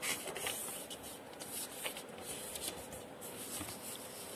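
A sheet of A4 paper rustling and sliding on a wooden table as it is folded in half and the fold pressed down. It is faint, with a louder rustle at the start and then scattered soft rustles and a few light ticks.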